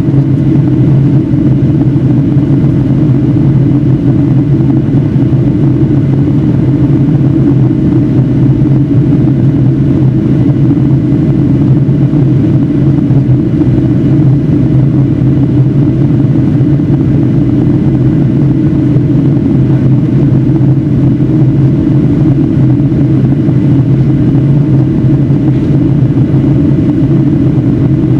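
Inside the cabin of a Boeing 757-300 in flight: the steady drone of its engines and the airflow over the fuselage, with a faint steady hum above it.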